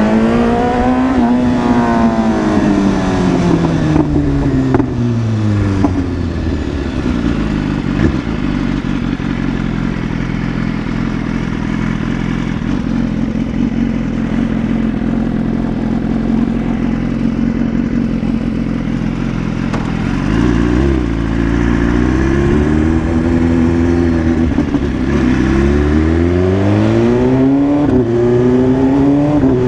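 BMW S1000RR inline-four engine revving: the pitch climbs and falls back at the start, then the engine holds a steady low note for a long stretch, and near the end it is revved up and let back down three times.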